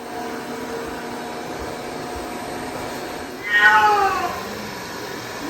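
Domestic cat giving one loud, drawn-out meow about three and a half seconds in, falling in pitch toward its end. The cat is upset by a robot vacuum cleaner.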